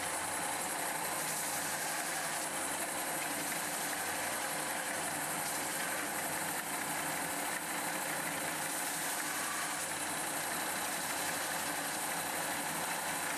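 Belt sander running steadily while burrs are ground off a freshly sawn part, an even grinding hiss with a faint high whine.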